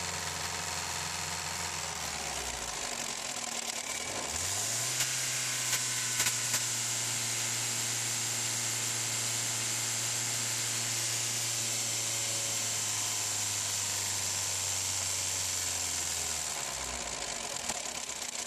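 Ford 1.3 four-cylinder petrol engine running, heard close up in the engine bay: it idles, sags briefly, then is revved up about four seconds in and held at a steady higher speed until it drops back to idle near the end. A few light clicks come around five to six seconds in.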